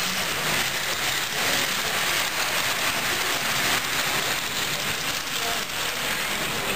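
Model freight train's wheels rolling along the track: a steady rolling hiss.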